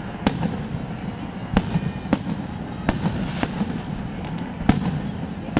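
Aerial fireworks shells bursting: about six sharp bangs at uneven intervals over a continuous low rumble.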